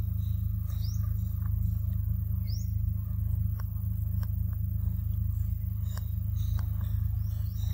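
Forest ambience over a steady low hum, with a few short, high, rising chirps in the first half and scattered sharp clicks through the rest.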